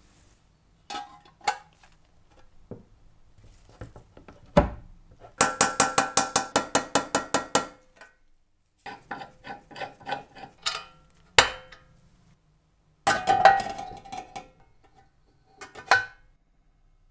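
Metal parts of a rotary cheese grater being handled and fitted: separate clinks and knocks, with a run of about a dozen quick ringing metallic taps, about five a second, near the middle.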